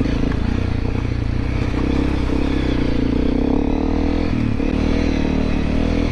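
Honda CRF250L Rally's 250 cc single-cylinder engine running as the dual-sport bike is ridden over a rough trail, the revs rising and falling with the throttle.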